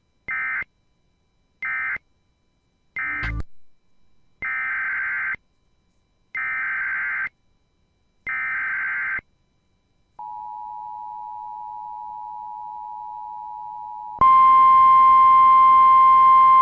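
Emergency Alert System tones. First three short buzzy data bursts (the end-of-message code of the previous alert), with a click during the third; then three longer bursts of the same warbling data (the SAME header of the next alert). Then a few seconds of the two-tone EAS attention signal, and from about 14 s in a louder steady NOAA Weather Radio 1050 Hz warning alarm tone with hiss.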